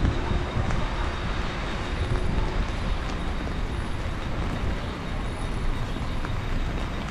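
Steady street noise in heavy rain: a continuous hiss of rainfall and wet traffic, with a brief low thump right at the start.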